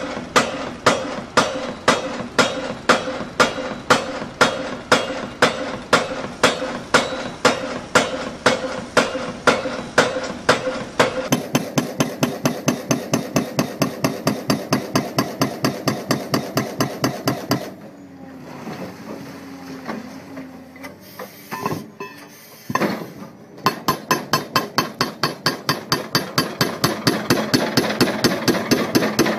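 Heavy mechanical hammering: evenly spaced blows, about two a second at first. After a cut they come faster, about three to four a second, broken off for a few seconds near the middle by irregular knocks before resuming.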